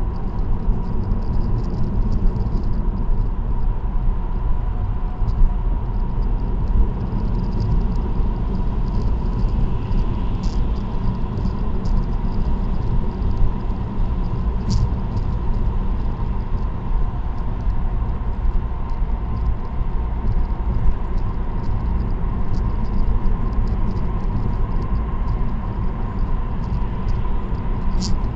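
Steady road noise of a car cruising on an expressway: an even tyre and engine rumble with a constant high hum, and a few light ticks now and then.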